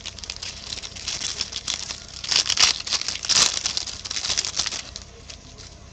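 A baseball card pack's wrapper being torn open and crinkled: a fast run of crackles, loudest around two and a half to three and a half seconds in, dying away about five seconds in.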